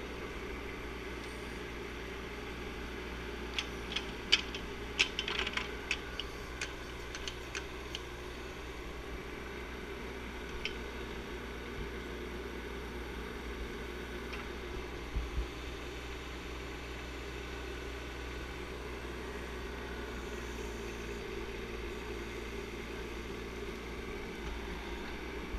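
Bobcat 418 mini excavator running steadily as it tracks along a dirt trail, with a cluster of sharp clicks and rattles about four to eight seconds in and a couple of knocks around fifteen seconds in.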